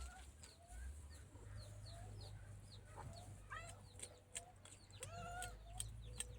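Domestic chickens clucking softly, with high chirps and a few light clicks.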